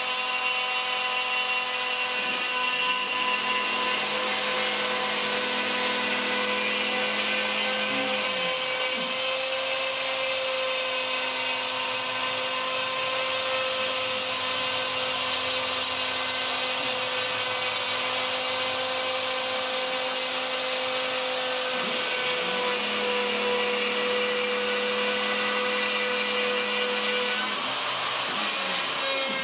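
Craftsman 2 hp wood router on a CNC machine running at full speed, its 1/2" two-flute end mill cutting out a cedar fence picket: a steady high whine over the hiss of the cut. A lower hum underneath breaks off briefly three times.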